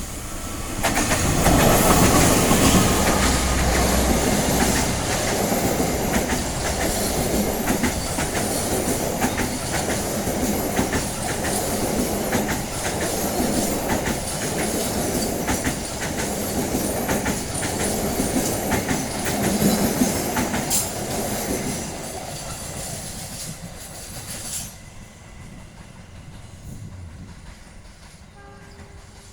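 A long train passing close by, its wheels clattering rhythmically over the rail joints. The sound rises sharply about a second in, stays loud for over twenty seconds, and drops off suddenly near the end as the last cars clear.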